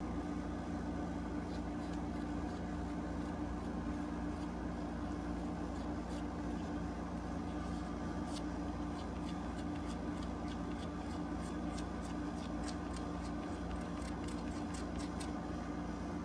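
Rubber eraser block rubbing dried masking fluid (frisket) off watercolour paper: faint dry scratchy ticks, sparse at first and thicker from about halfway in, over a steady low hum.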